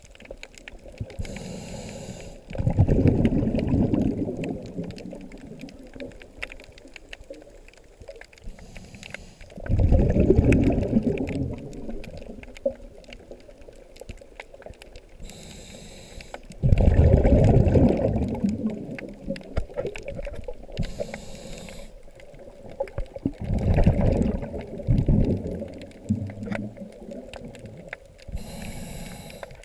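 Scuba diver breathing through a regulator underwater: a short hiss on each inhale, then a gurgling rush of exhaled bubbles, about every seven seconds.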